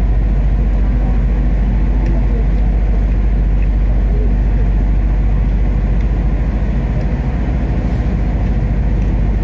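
Steady low rumble and hum inside a passenger train carriage, with no sudden events.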